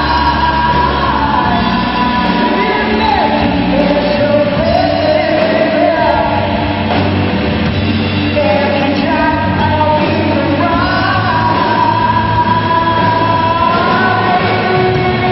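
Live rock band playing: a singer sings long, sliding melodic lines over electric guitars, bass guitar and drums.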